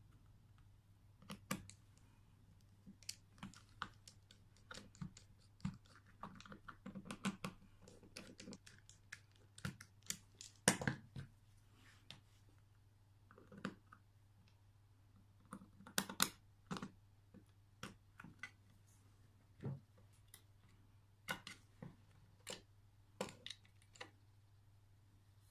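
Irregular small clicks and taps from a precision screwdriver, tweezers and tiny screws against the plastic back case of a Casio fx-3600Pv calculator, as the case screws are taken out to reach the battery.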